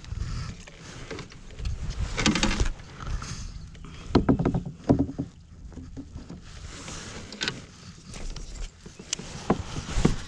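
A cast with a baitcasting rod and reel from a plastic kayak, with handling noise and several sharp knocks and clicks against the hull over the second half.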